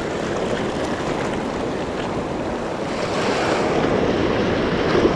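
Small waves washing in over the reef rocks at the water's edge, with wind on the microphone. The wash swells louder about three seconds in.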